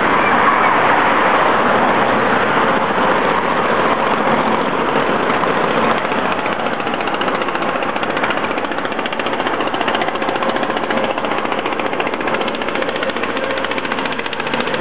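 Diesel engine of a cargo barge running below the bridge, a loud, steady, rapid even knocking.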